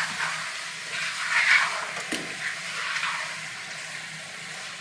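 Chicken, onions and spices sizzling in a frying pan while a wooden spoon stirs them in repeated scraping strokes, with one sharp knock about two seconds in. The masala is being fried to bring out its aroma.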